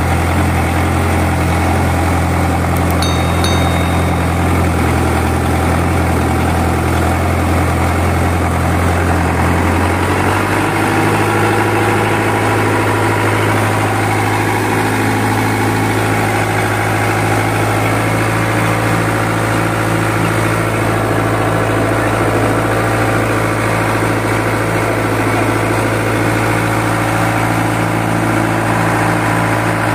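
Mitsubishi PS 120 truck diesel engine, fitted in a wooden boat, running steadily at idle. About ten seconds in its speed steps up and then holds steady at a higher pitch.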